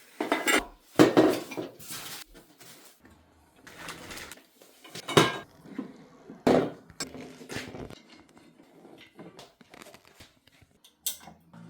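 Console table parts being handled during assembly: irregular metallic clinks and knocks of hard parts against each other, with a few louder clanks near the start and about five and six and a half seconds in.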